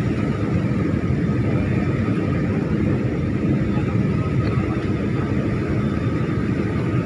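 Airliner cabin noise on the approach to landing: a steady, low rush of engines and airflow, with a faint steady hum higher up.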